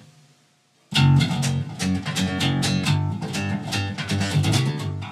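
Jackson electric bass played fingerstyle: after a brief pause, a fast run of plucked notes starts about a second in, a repeated pattern moving between the third and fifth frets across the fourth and third strings, fading near the end.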